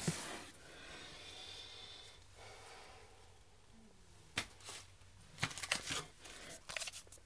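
Faint handling sounds of trading cards and a foil card pack: a soft rustle at first, then a single click about four seconds in and a run of clicks and crinkles in the last two seconds as the next pack is picked up.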